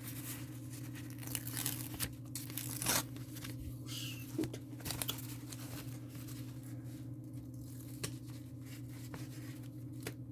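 Short, irregular tearing and crinkling of the plastic film covering a diamond painting canvas as it is peeled and handled, over a steady low hum.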